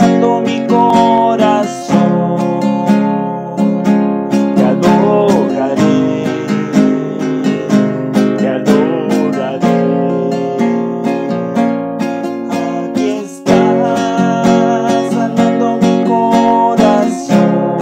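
Nylon-string classical guitar strummed in a quick, rhythmic pattern of chords, with sharp strokes several times a second and a brief break near the end.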